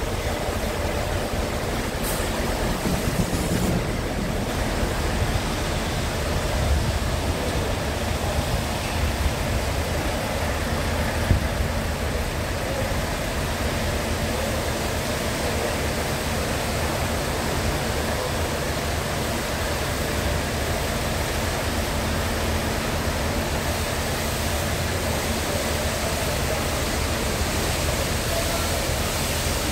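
Scania R tractor unit's diesel engine idling steadily: a low even rumble under a constant hiss.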